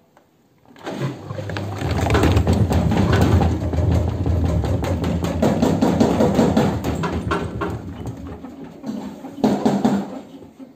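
A 14-year-old Modena front-loading washing machine running with an unbalanced load, its drum banging and knocking loudly in quick, irregular strokes over a low motor hum. It starts about a second in and dies away near the end.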